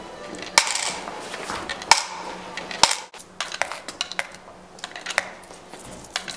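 Coins dropped one after another through the slot of a clear plastic donation box, clinking against the box and the coins inside. A few loud clinks come in the first three seconds, then a quicker run of lighter ones.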